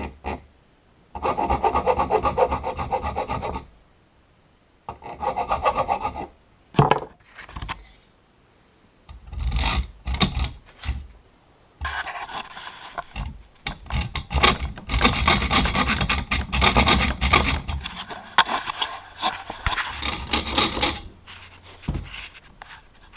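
Hand tool rasping back and forth on a small brass part, cutting a slot in it, in quick strokes. The strokes come in bursts: about a second in, near six seconds, around ten seconds, then a long run from about twelve to twenty-one seconds.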